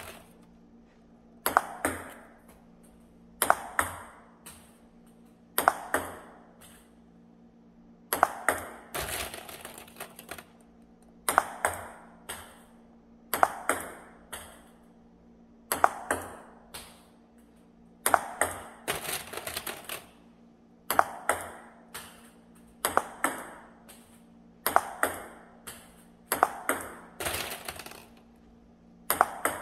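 Table tennis ball and racket in repeated self-fed backhand flicks: a quick cluster of sharp clicks about every two seconds as the ball bounces on the table and is struck by the rubber-faced racket.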